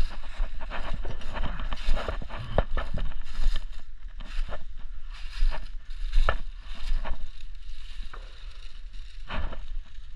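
Footsteps crunching through a deep layer of dry fallen leaves, an uneven walk of about one step a second, over a steady low rumble.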